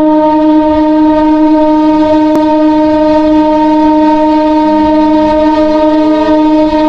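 Horn of a suburban electric local train, heard up close from the leading coach: one long, loud, steady blast of several tones sounded together.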